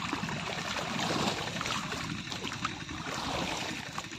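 Muddy water sloshing and splashing as a wooden plank on a pole is pushed through a flooded paddy field, with small splashes throughout.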